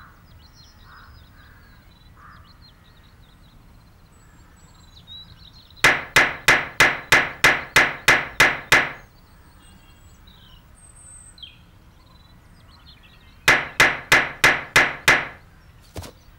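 Hammering: two runs of rapid, evenly spaced blows, about four a second. About a dozen come some six seconds in, and about eight more come near the end. Faint birdsong is heard between them.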